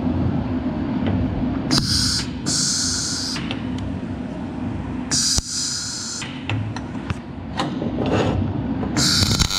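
CO2 MIG welding arc on thin steel: short bursts of crackling hiss about two and five seconds in, as tack welds are struck, then a longer weld starts near the end. A steady low machine hum and a few clicks and knocks run between the bursts.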